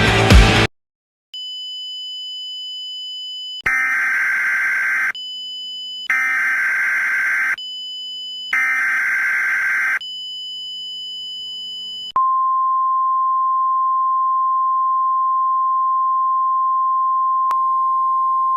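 Emergency Alert System header: three bursts of screeching data tones about a second apart, with a steady high tone between them, then a long steady single-pitch attention tone lasting about six seconds.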